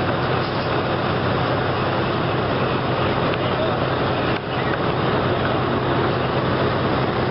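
Fire engine running steadily while it pumps water to a hose line, a low steady hum under a constant rushing noise.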